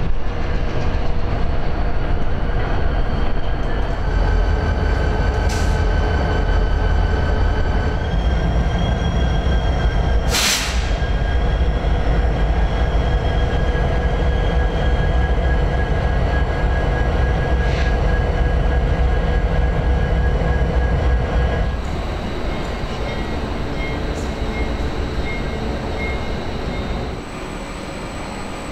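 Diesel locomotives idling: a steady low rumble with several held whining tones over it, and a brief loud hiss about ten seconds in. The rumble drops away about 22 seconds in and drops again near the end.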